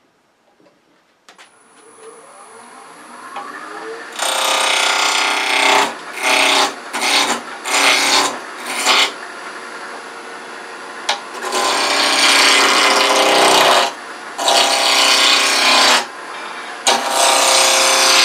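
A wood lathe spins up with a rising whine. From about four seconds in, a spindle roughing gouge cuts a square wooden handle blank down to round in a series of loud, rough cutting passes, some long and some short.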